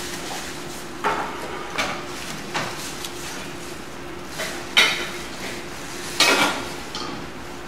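Several separate sharp clatters and knocks at irregular intervals, the loudest about five seconds in, over a steady low hum.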